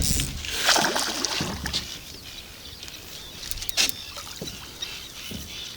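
Water splashing and sloshing around a small fishing boat, heaviest in the first two seconds, with a sharp knock a little before four seconds in.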